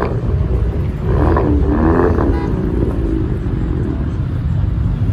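Steady low rumble of wind on the microphone over cars running in the lot, with a short burst of voices about a second in.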